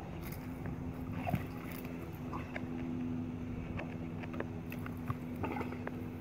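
A steady low machine hum with scattered soft clicks and rustles, as a Staffordshire Bull Terrier noses and mouths her ball on the grass.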